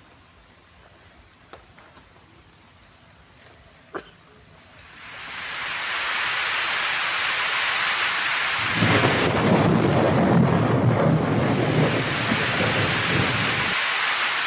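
A loud, steady rushing noise like heavy rain swells up about five seconds in. A deep rumble joins it from about nine seconds until shortly before the end. Before the swell there is only quiet with a couple of small clicks.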